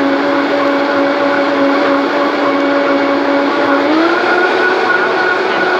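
High-powered countertop blender motor running loud and steady, blending a thick smoothie of seeds, banana, spinach and water. The whine steps up in pitch about four seconds in.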